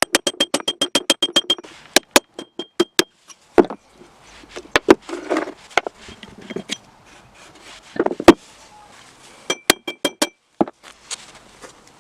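Metal parts of a vintage BAHCO 176 pipe cutter being worked by hand: a fast run of about ten ringing metallic clicks at the start, then scattered knocks and short scraping sounds, and another short cluster of ringing clicks near the end.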